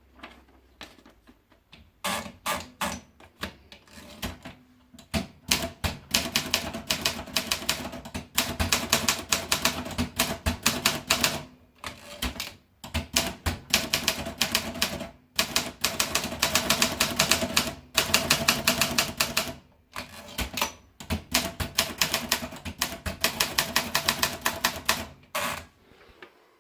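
Olympia Elite typewriter being typed on: rapid runs of key strikes clacking against the platen in bursts of a second or more, separated by brief pauses.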